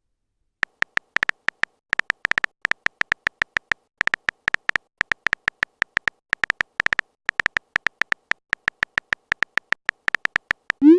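Smartphone keyboard typing clicks: a long, uneven run of short, pitched taps, about five a second with brief pauses, as a text message is typed out. A rising swoosh begins right at the end.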